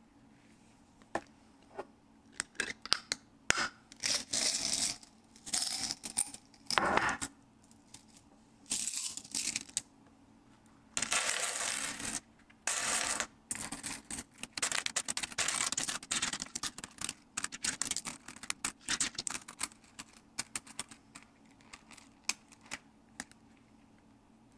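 Coins clinking and jingling inside a zippered leather coin sap as it is handled: many quick irregular clicks, with a few longer rasps in between.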